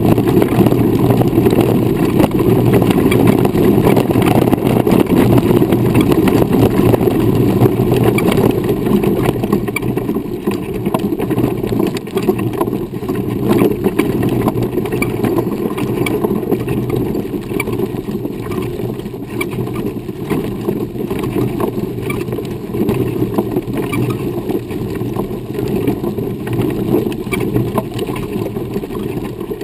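Wheels of a custom running wheelchair rolling over a dirt and gravel trail: a steady rumble through the chair-mounted camera with a constant crackle of small stones, easing a little after about ten seconds.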